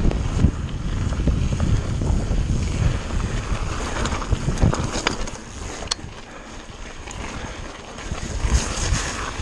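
Wind rushing over the microphone of a camera on a mountain bike's handlebar, with the bike rattling over a rough, wet trail at speed. A few sharp clicks come about halfway through. The noise eases for a couple of seconds and picks up again near the end.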